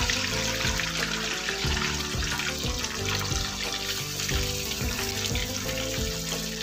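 Marinated chicken leg pieces sizzling in hot cooking oil in a kadai as more are laid in, over background music with a steady beat.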